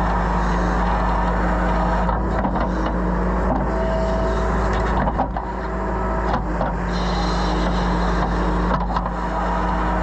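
Compact excavator's diesel engine running steadily while the bucket digs into clay soil, with several short scrapes and clunks of the bucket.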